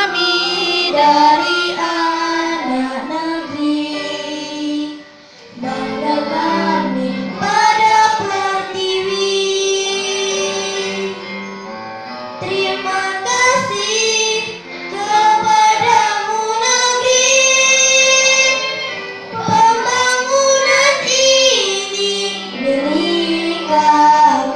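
A young girl singing a slow song solo into a handheld microphone, with long held notes and a brief pause about five seconds in.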